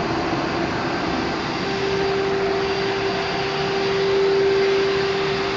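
Steady whir of a paint-spraying rig's air supply running, with a steady hum-like tone that sets in about a second and a half in and stops near the end.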